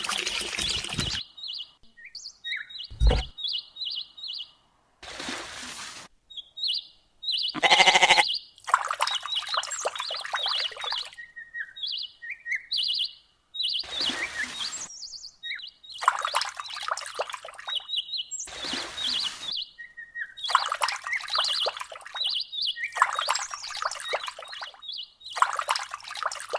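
Small birds chirping in quick, repeated high calls, alternating with several bursts of rushing noise.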